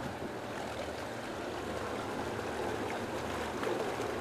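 Boat engines running at low revs under a steady wash of moving water against the hull and pier, with a steady low drone.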